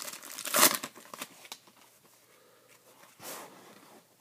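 Foil wrapper of a trading card pack being torn open and crinkled by hand, in a crackly burst that is loudest about half a second in and dies away after a second and a half. A brief soft rustle follows about three seconds in.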